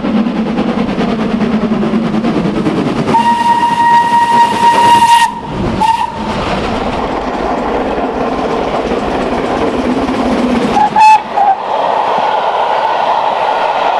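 Steam locomotive running with a steady rumble. Its whistle gives one long blast about three seconds in, cut off suddenly and followed by a brief toot, then two short blasts near eleven seconds.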